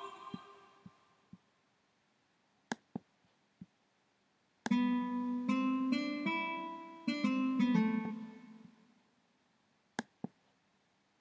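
Korg M1 Le software synthesizer's "Guitar 1" preset playing a short phrase of about a dozen plucked, guitar-like notes a little under halfway in, ringing away over a few seconds. Before it, the fading tail of the previous choir-like "Ooh/Ahh" preset and a few sharp clicks; two more clicks near the end.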